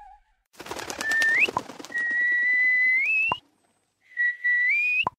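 Cartoon soap-bubble sound effects: three whistled tones slide upward, each cut off by a sharp pop. The first comes over a crackly noise.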